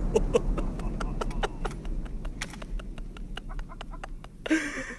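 Aftermath of a Tannerite explosion: the blast's low rumble dies away while dirt and debris patter down in many sharp clicks that thin out over a few seconds. A brief loud noise comes near the end.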